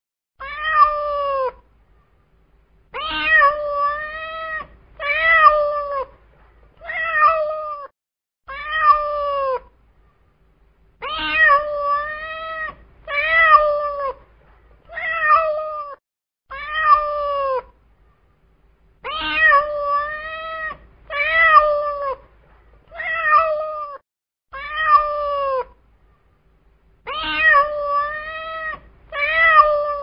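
A cat meowing over and over: about eighteen drawn-out meows, each roughly a second long, one every one to two seconds, with a few brief pauses.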